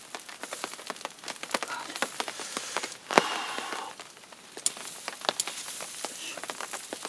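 Fire crackling and sizzling: a steady hiss scattered with many sharp pops, with a louder sizzle about three seconds in.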